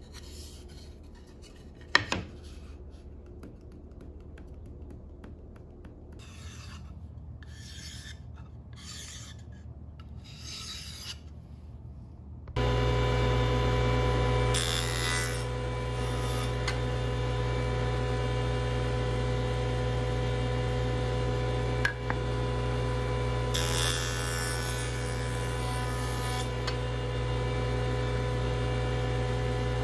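A jointer's motor switches on about twelve seconds in and runs with a steady hum. A mahogany board's edge is fed over the spinning cutterhead, giving a brief hissing cut soon after the start and a longer one of about three seconds near the end. Before the motor starts there is a sharp knock and a few short rubbing sounds of the board being handled.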